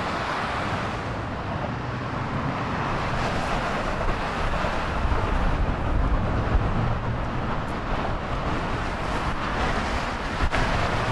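Steady road-traffic rumble with wind buffeting the microphone, and a single short click near the end.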